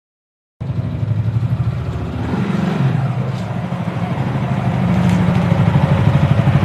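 A small vehicle engine running close up with a rapid, even pulsing beat. It cuts in abruptly about half a second in, after a moment of silence.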